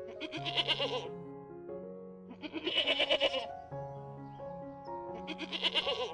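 An animal bleating three times, each call about a second long with a wavering, shaky pitch, over background music with held notes and a bass line.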